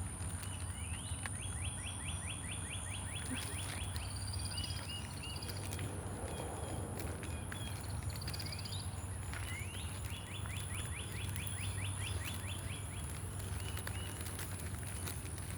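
A songbird singing: a rapid trill of repeated short notes, heard twice about nine seconds apart, with a few scattered higher chirps between, over a steady low outdoor rumble and a thin steady high tone.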